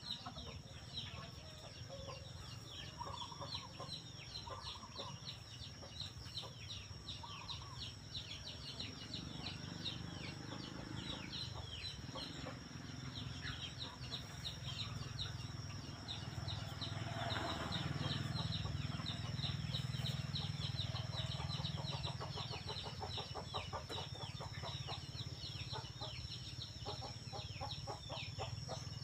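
Outdoor bird sounds: fast, repeated high chirps throughout and clucking fowl, over a steady high-pitched tone and a low hum.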